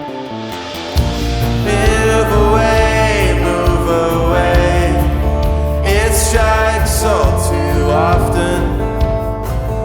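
Indie rock band playing live. Acoustic guitar strumming is joined about a second in by the full band with a heavy low end, with a bending melodic line over the top.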